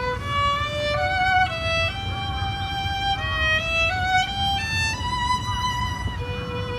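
Solo violin playing a slow melody of held notes that step up and down, with short slides between some notes.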